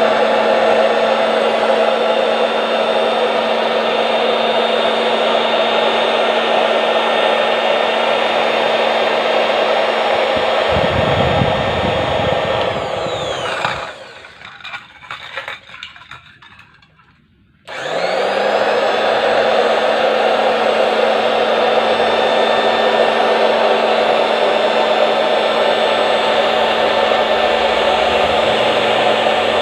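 Octa mini electric fabric-cutting machine running with a steady motor whine and hum. A deeper rumble joins about eleven seconds in, then the motor is switched off and winds down, stays off for about four seconds, and starts up again and runs steadily.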